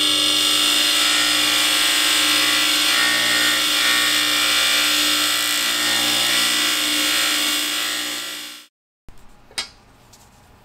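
Bench grinder running with a polishing wheel, a steel screwdriver blade pressed against the wheel: a loud, steady whine with many tones. It cuts off suddenly about nine seconds in, leaving a quiet stretch with one light click.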